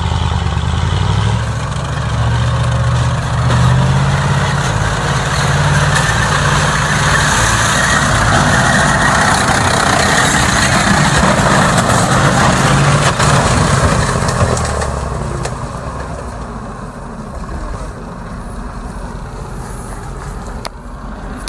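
Motor vehicle engines running hard over rough ground, a tracked armoured transporter-tractor and a Lada Niva. The engine note is loud and shifts in pitch in steps, then eases off about fifteen seconds in.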